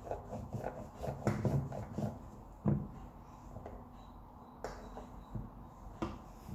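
Rolling pin rolled back and forth over a slice of bread on a metal plate, making short rubbing strokes. They come about three a second at first, then slower, with a few light knocks.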